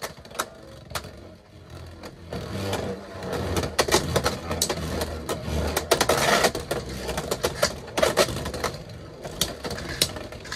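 Two Beyblade X tops, Tyranno Beat 4-80 Rush and Dronzer S 9-60 Low Flat, spinning in a plastic stadium. Their tips whir steadily on the floor, broken by many sharp clicks as they hit each other and the stadium wall, with the busiest stretch in the middle.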